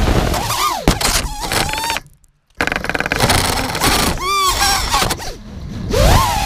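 Electronic dance music soundtrack with wobbling, gliding synth lines, cut by a short break of silence about two seconds in.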